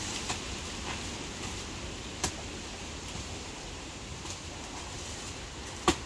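A few short, sharp snaps over a steady background hiss: small ones near the start, a clearer one about two seconds in, and the loudest just before the end.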